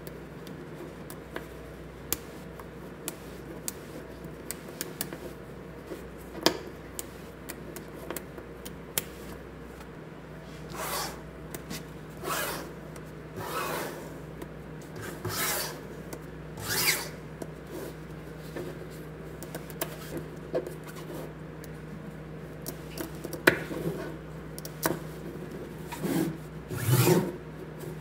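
Small magnetic balls clicking together and rubbing across a tabletop as fingers press and slide them into shape. Sharp clicks come throughout, and in the middle there is a run of longer rubbing swishes a little over a second apart.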